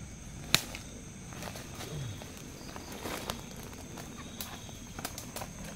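Footsteps through forest leaf litter, with scattered snaps and crackles of dry twigs underfoot and one sharp crack about half a second in.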